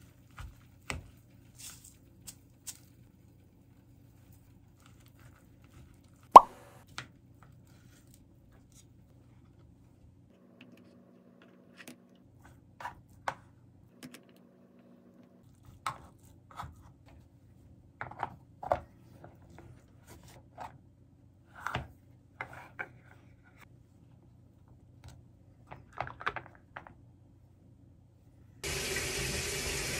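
Scattered light clicks and taps of a wooden spoon against plastic containers as rice is mixed and packed into a plastic triangle onigiri mould, with one sharp knock about six seconds in as the loudest sound. Near the end a water tap starts running steadily.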